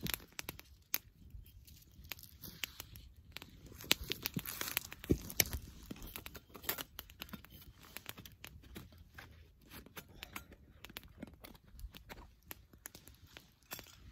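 Wood campfire crackling with irregular sharp snaps and pops, mixed with handling noise as gloved hands lift a metal pot off the fire, set it down and move the burning wood.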